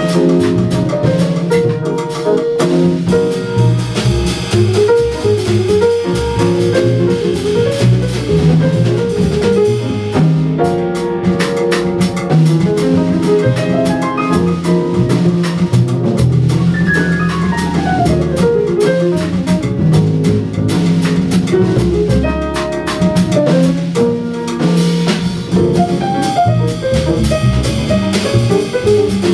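Live jazz trio of acoustic grand piano, upright double bass and drum kit playing together, with ride cymbal over walking bass and piano chords. A quick falling run of notes comes about two-thirds of the way in.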